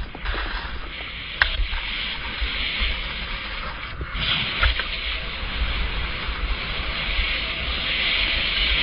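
Skis hissing steadily over snow, with wind buffeting the microphone as a low rumble. A sharp click comes about a second and a half in, and another near the middle.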